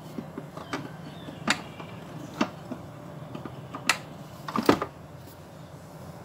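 Kitchen utensils knocking against a mixing bowl: a few sharp knocks and clicks, the loudest about four and a half seconds in, over a low steady hum.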